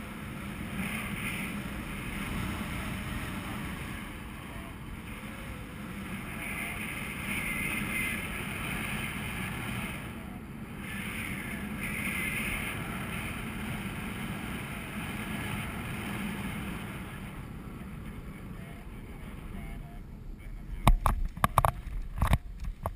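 Steady wind rush over the camera microphone of a paraglider in flight, with a faint whistling that comes and goes. In the last couple of seconds, sharp knocks and thumps on the camera as the pilot lands.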